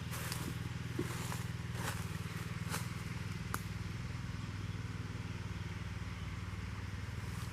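Tractor engine running steadily, a low drone that holds throughout. Footsteps crunch on the forest floor about once a second.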